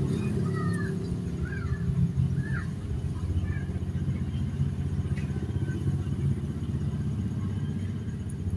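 A steady low rumble, most like a running motor engine, under a few faint short chirps in the first few seconds.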